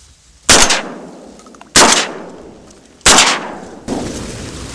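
Three shotgun shots fired in quick succession, a little over a second apart, each blast followed by a fading echo.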